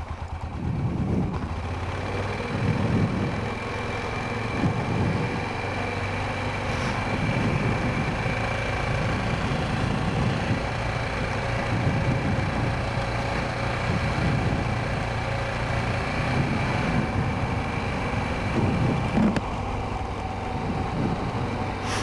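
Honda Rincon 650 quad's single-cylinder engine running steadily with a constant whine over a low rumble.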